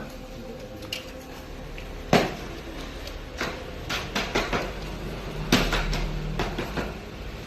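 A series of sharp knocks and clanks, about eight of them, as parts of an electric paper-cutting guillotine are handled and fitted. The loudest come about two seconds in and about five and a half seconds in, over a low steady hum.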